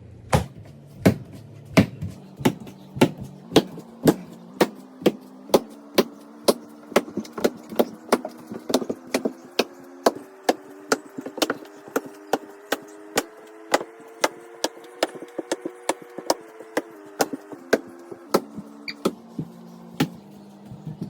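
A toy monkey slammed against the floor again and again, about two hard smacks a second. Under the smacks runs a steady pitched tone that climbs in steps and falls back near the end.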